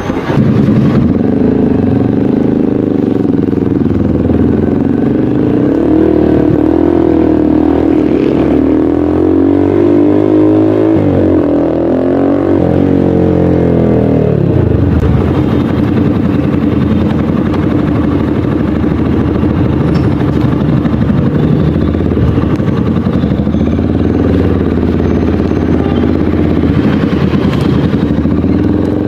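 Motorcycle engine running through an aftermarket slip-on exhaust canister for a sound test: it is revved up and down a few times in the first half, then settles to a steady idle, with one more light blip near the end.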